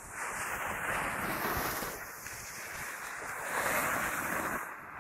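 Skis sliding and scraping over packed snow on a groomed piste: a rushing hiss that swells twice.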